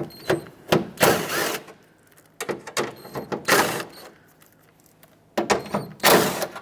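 A ratchet with a 10 mm socket running in several short bursts, about a second each, as it spins off the mounting nuts of the van's rear door handle.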